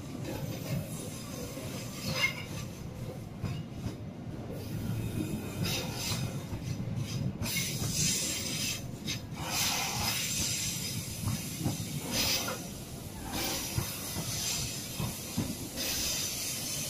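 Coaches of the Argo Parahyangan passenger train passing close by: a continuous rumble of steel wheels on rail, broken again and again by high-pitched bursts of hiss and squeal.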